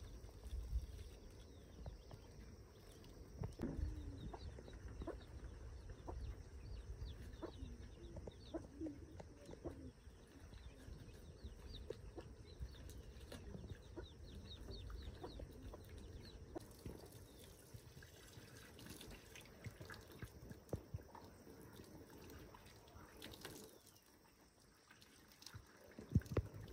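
Chickens clucking faintly, with high little chick peeps, over the soft splashing of water running from a hose onto someone washing.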